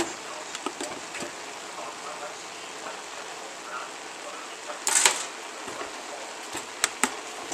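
Ground beef and onions frying with a steady sizzle while a plastic spoon stirs through them, giving scattered light clicks and scrapes against the pot, with one louder brief clatter about five seconds in.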